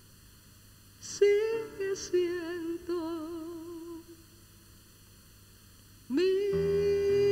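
Solo female voice singing a slow bolero line with wide vibrato, unaccompanied. After a short pause she slides up into a long held note, and low accompanying notes come in beneath it.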